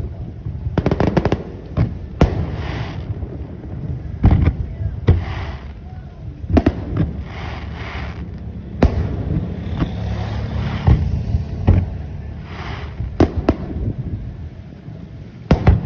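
Aerial fireworks going off: about a dozen sharp bangs at irregular intervals, some in quick pairs, with softer crackling stretches and a low rumble between them.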